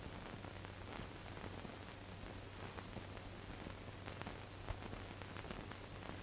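Faint steady hiss and low hum of an old film soundtrack, with a few scattered faint clicks.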